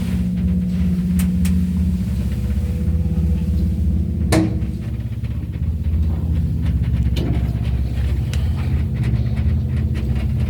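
Old ЦРЗМ passenger lift running: a steady low rumble and hum from the moving car, with a few sharp clicks, the loudest about four seconds in.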